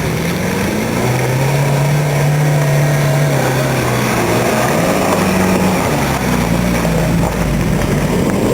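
Suzuki Samurai's engine running as it drives off-road, its note holding steady, then dipping and rising again about halfway through as the throttle changes.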